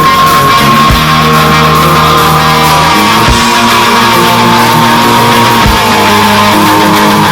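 Background rock music with electric guitar: a sustained, wavering lead guitar line over held bass notes and a slow drum beat.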